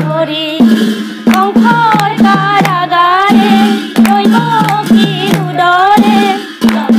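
Women singing an Assamese devotional nam together, with hand-clapping, small hand cymbals and a pitched drum keeping a steady beat under the voices.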